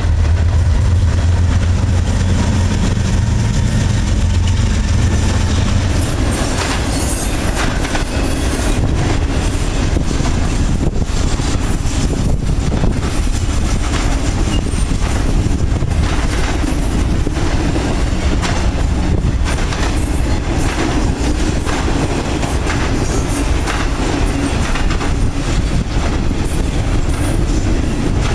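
Norfolk Southern GE diesel locomotive passing with a deep engine drone that fades after about six seconds. Then double-stack intermodal cars roll by with steady wheel clatter and clicking over the rail joints.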